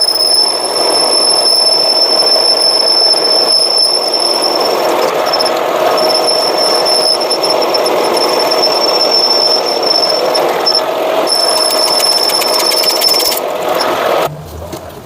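Workshop power tool running steadily with a high whine over a dense grinding-like noise, with brief breaks in the whine, then stopping suddenly near the end.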